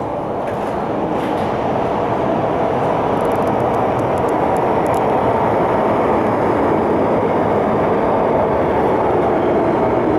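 MTR Island Line M-Train electric multiple unit passing through an underground station at speed without stopping, heard through platform screen doors: a steady rushing rumble of wheels and running gear that grows slowly louder.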